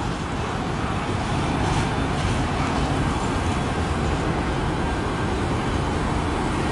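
Steady rumble of a long freight train's cars rolling past on the rails.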